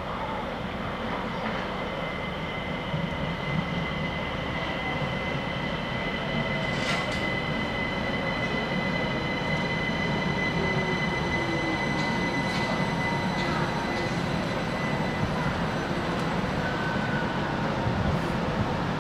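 ÖBB class 4024 Talent electric multiple unit pulling into the platform and braking to a stop, growing louder as it comes in. A steady high whine runs over the rumble of the wheels, and a lower tone falls in pitch about halfway through as the train slows.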